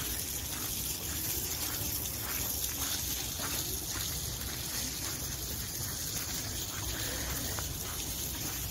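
Steady rushing outdoor noise, with faint footsteps crunching on a gravel path.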